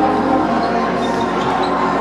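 Background music playing over the sounds of an indoor basketball game, with a few short, high squeaks from sneakers on the gym floor.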